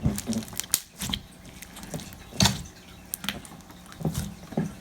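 Hands squeezing and stretching pink slime with foam beads mixed through it, giving scattered crunchy crackles and pops, with one louder pop about two and a half seconds in.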